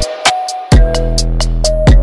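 Electronic background music with a beat: deep bass-drum hits and quick hi-hat ticks over sustained synth tones.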